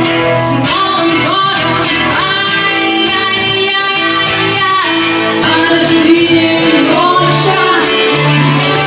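A singer performing a song with acoustic guitar accompaniment, holding long notes.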